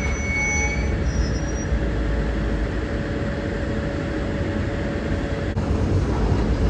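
A diesel switching locomotive of a CSX local freight train moving past with a steady heavy rumble of engine and wheels on rail. A faint steady squeal-like tone runs under it and stops about five and a half seconds in.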